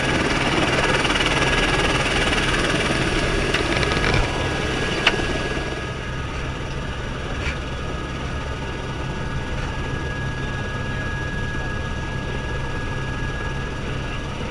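Helicopter's engine and rotor running steadily on the ground, heard from inside the cabin: a low hum with a thin high whine held at one pitch. A sharp click about five seconds in, after which the noise is slightly quieter.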